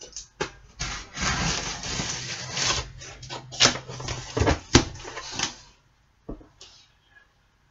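A knife slitting the packing tape on a cardboard box: scraping and rustling of tape and cardboard, with two sharp clicks about a second apart near the middle.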